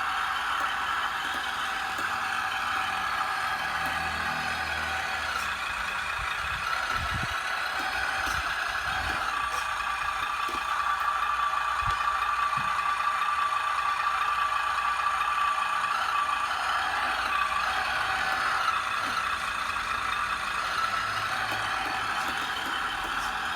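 Radio-controlled 1/12-scale 6x6 model truck's electric drive motors and gearboxes whining steadily as it drives, with a few low knocks about a third of the way in.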